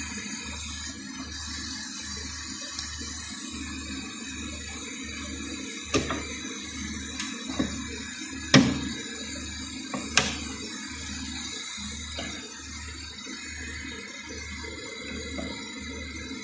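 Water running steadily through a laboratory heat exchanger rig's hoses, with a low regular pulsing underneath. Several sharp clicks and knocks come from metal quick-connect hose fittings as they are unplugged and refitted, the loudest about two-thirds of the way through.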